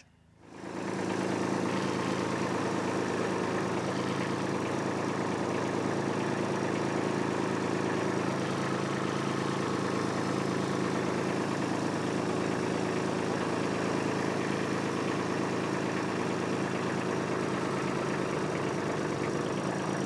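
Kubota B2601 compact tractor's three-cylinder diesel engine running at a steady speed, fading in about a second in.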